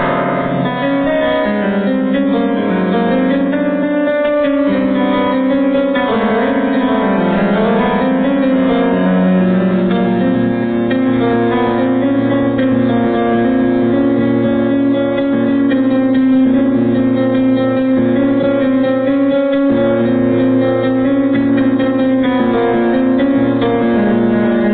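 Background instrumental music with held chords that change every few seconds.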